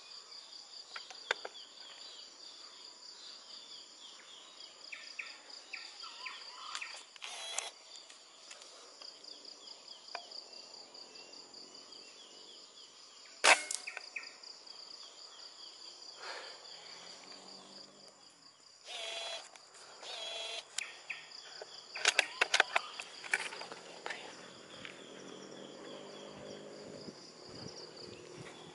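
Insects chirring steadily with a fast pulsing trill. About halfway through comes one sharp crack, a PCP air rifle shot. Bursts of rustling and knocks follow later.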